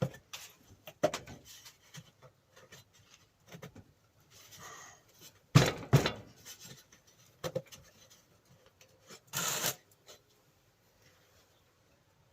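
Scattered clicks, knocks and scrapes of a spanner and metal parts as a bench grinder's cover is unbolted and lifted off. The loudest knock comes about five and a half seconds in, and a short scraping rush comes near ten seconds.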